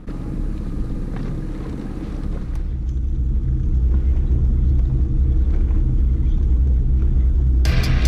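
Boat's outboard motor running steadily while trolling, heard as a low rumble that grows louder after a few seconds. A brief hiss comes near the end.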